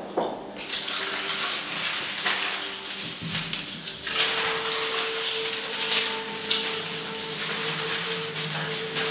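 Paper sticky notes rustling and being crumpled by hand against a tiled floor, a dense, continuous crackle. A faint steady tone joins in about four seconds in.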